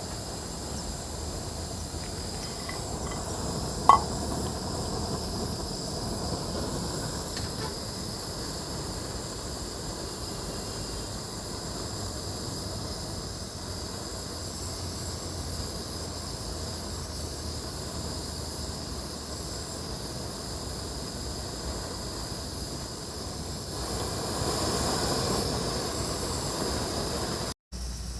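Portable camping gas stove burning steadily under a pot of water for coffee, a continuous hiss, with one sharp metallic clink about four seconds in.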